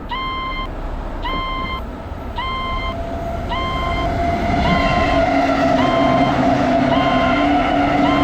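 Railway level-crossing alarm ringing a repeated pitched tone, about one every second, each held for about half a second. From about three seconds in, a steady lower hum grows louder beneath it.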